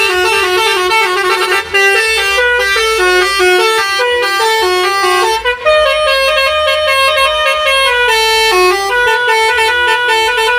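Basuri telolet horn, a multi-trumpet musical vehicle horn, playing a fast tune of short stepped notes, with a short break about five seconds in.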